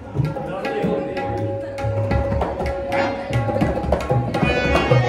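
Tabla and dholak drumming a lively rhythm of repeated deep strokes and sharp slaps, with a steady held note sounding underneath for the first few seconds.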